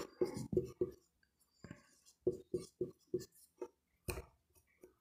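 Short scratchy writing strokes of a pen or marker, about four a second, with a pause partway through and a single sharp click about four seconds in.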